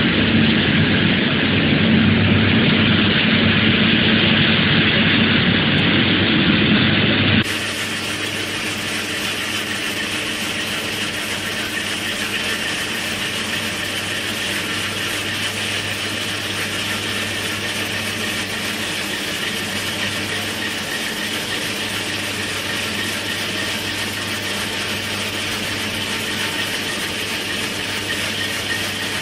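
Hydraulic rock saw running in a tunnel: a loud, steady cutting noise, then an abrupt change about seven seconds in to a somewhat quieter, steady machine drone with a constant hum.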